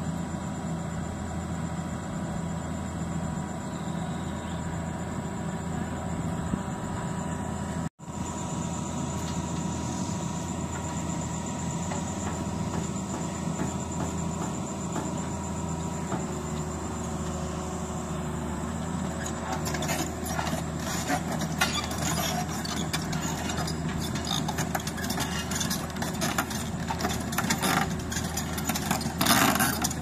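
Heavy diesel machinery engine running steadily at a low pitch. It cuts out for an instant about eight seconds in, and from about two-thirds of the way through irregular crackling and clicking is heard over it.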